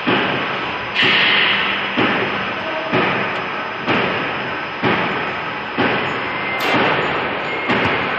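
Steel fence post production line running: a sharp metallic clank repeating about once a second over a steady machine clatter.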